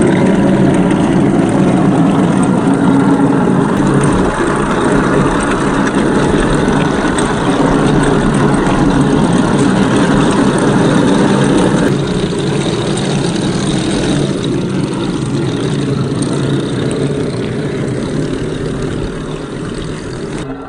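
HengLong M1A2 Abrams RC tank running: a steady, dense engine-like drone mixed with the rattle of its tracks over gravel. It drops a little in level about twelve seconds in and fades slightly toward the end.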